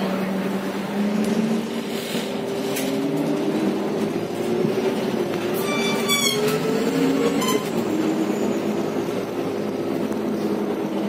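Inside an Irisbus/Renault Agora L articulated natural-gas city bus under way: its engine drones steadily over road noise, the pitch climbing and then dropping back about seven and a half seconds in. About six seconds in, the articulation joint gives a brief high, wavering squeal, and a shorter one follows a second and a half later.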